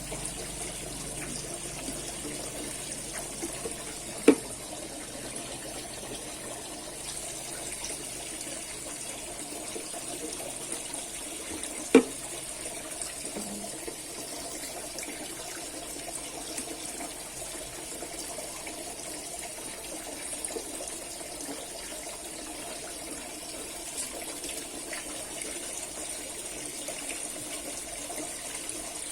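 Steady rain hiss. Two sharp knocks stand out, about four seconds in and again about twelve seconds in.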